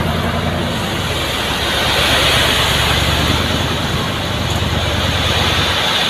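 Diesel engine of a dump truck running steadily while its tipper bed is raised, with gravel rushing off the tilted bed. The low engine hum drops away right at the end.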